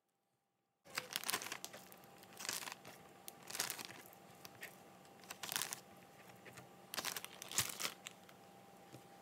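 Plastic zip-top freezer bag crinkling in repeated short bursts as raw chicken pieces are scooped into it. The crinkling starts about a second in.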